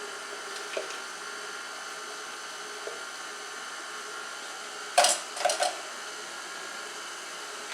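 A quick cluster of three or four clattering knocks of kitchenware about five seconds in, over a steady background hum in a small kitchen.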